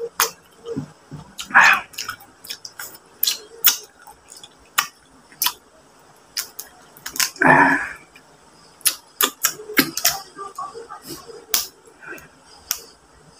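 Close-up eating sounds of a boiled mud crab picked apart by hand: many short sharp clicks and cracks of shell and lip-smacks. Two longer sucking sounds come about two seconds in and halfway through.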